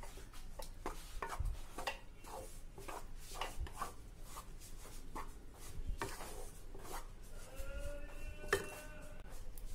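A spatula scraping and stirring gram flour roasting in ghee in a pan, in irregular repeated strokes: besan being roasted for laddoos.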